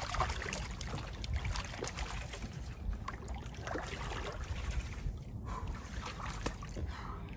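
Lake water sloshing and trickling, with small splashes and drips, as people wade and move their hands through it while handling a large catfish at the surface.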